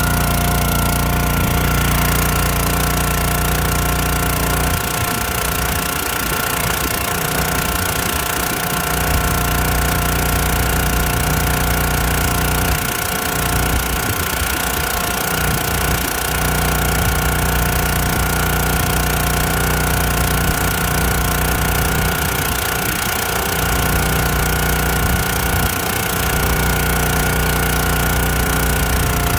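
Small gasoline engine of a Countyline 25-ton hydraulic log splitter running steadily with a high whine above it. Its low end wavers several times as the splitter is worked on wood rounds.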